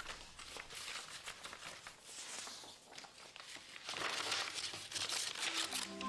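Sheets of paper rustling and crackling as several people leaf through and shuffle stacks of documents, in a small room. A few steady musical notes come in near the end.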